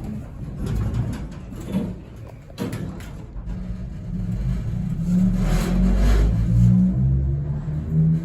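Vintage elevator starting off with a few clunks, then running with a low rumble and a humming tone that wavers up and down in pitch: the weird noise this old elevator makes while moving.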